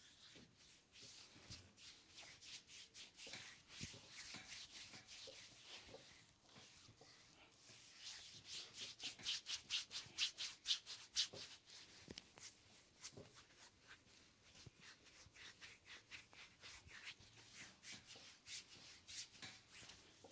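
Oiled hands rubbing a bare lower leg and foot in a massage: soft, rhythmic skin-on-skin strokes, at their quickest and loudest near the middle at about four strokes a second.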